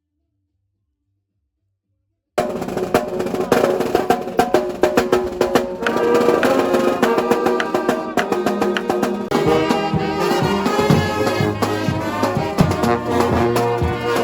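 Silence, then about two seconds in, music with drums and brass starts suddenly and plays on.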